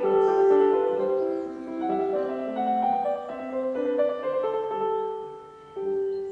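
Slow solo piano music: a gentle melody of held notes that fades down near the end of a phrase.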